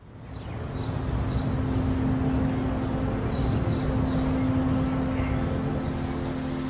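Steady vehicle noise with a sustained low hum, fading in from silence over the first second.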